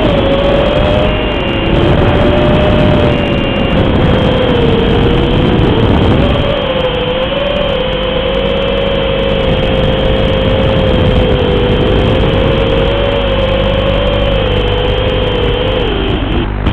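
Racing quadcopter's brushless 2204 2300kv motors spinning Dalprop 5040 three-blade props, a steady buzzing drone whose pitch wavers up and down with throttle. Near the end the pitch drops and the drone cuts off as the quad comes down.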